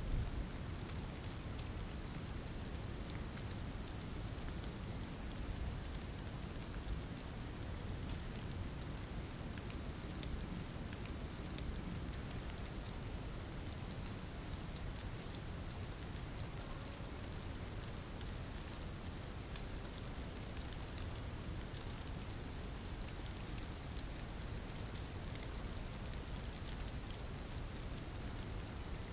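Steady rain falling: an even hiss of drops with a low rumble beneath, unchanging throughout.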